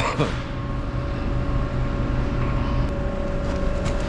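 Steady machine drone with a constant mid-pitched hum running underneath, with a brief clatter right at the start and a couple of faint ticks later on.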